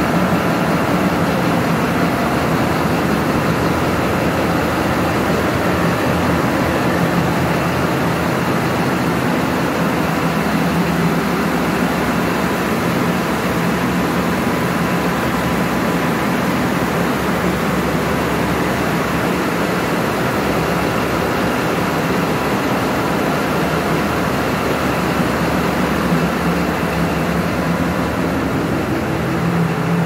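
Loud, steady drone of running machinery in a tugboat's engine room, with a constant low hum and a faint steady whine above it.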